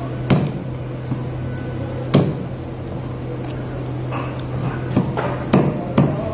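Heavy knife chopping rohu fish on a wooden chopping block: sharp knocks of the blade striking the block, two spaced well apart, then several in quicker succession near the end, over a steady low hum.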